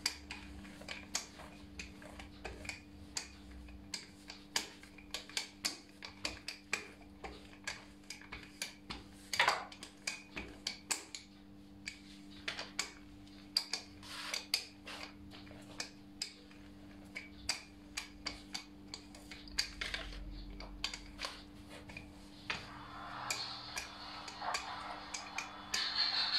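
Wooden rolling pin rolling out a sheet of dough on a granite countertop, with irregular light clicks and knocks, two or three a second, as the pin and its handles tap against the stone. Near the end a steady rustling noise joins in.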